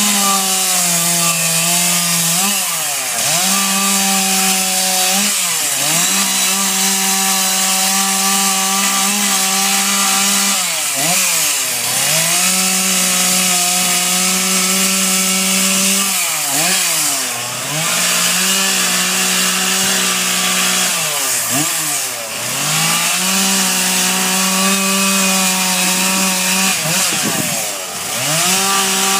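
Two-stroke gas chainsaw running at high revs as it carves into a wood stump. The engine note drops and climbs back several times as the throttle is eased off and squeezed again between cuts.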